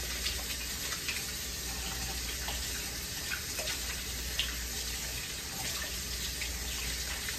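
Kitchen tap running steadily into a sink while hands are washed under it, with a few small splashes along the way.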